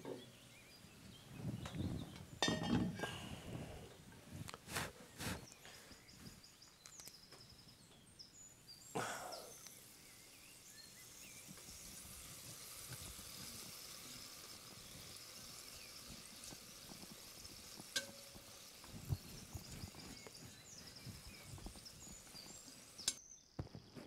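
Scattered light clinks and knocks of a cast-iron Dutch oven and its wire bail handle as it is handled and greased by hand, over a faint hiss.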